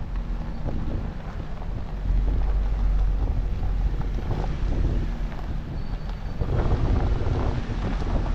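Jeep driving slowly over a rough dirt trail: a steady low rumble from the engine and tyres, with scattered knocks and rattles as it goes over bumps. Wind buffets the microphone.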